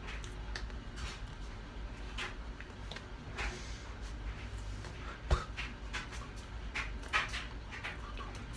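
Soft taps, brushes and clicks of hands meeting each other and the shirt during sign language, with one sharp tap about five seconds in and a smaller one a couple of seconds later, over a low steady room hum.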